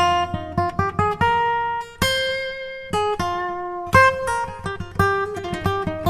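Instrumental background music: a run of quickly plucked notes, with one chord struck about two seconds in and left to ring for about a second before the picking resumes.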